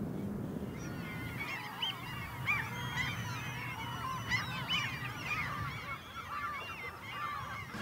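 A flock of birds calling, many short rising-and-falling calls overlapping, over a low steady rumble.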